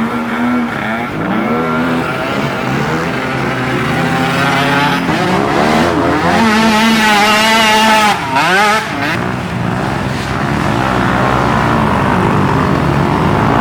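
Several youth ATV engines revving up and down together, their pitches overlapping, with one climbing sharply about halfway through.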